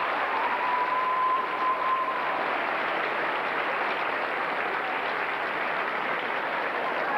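Audience applauding steadily, with a held musical note fading out about two seconds in.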